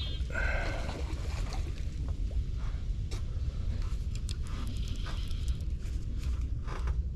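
Wind rumbling on the microphone, with scattered faint clicks.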